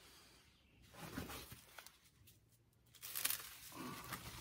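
Faint handling noises, then about three seconds in, plastic stretch wrap crinkling as it is pulled off the roll and wound around a horse's hoof over a freshly superglued shoe.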